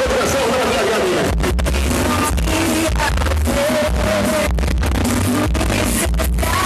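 Loud dance music with singing over a heavy bass line, played through a large party sound system.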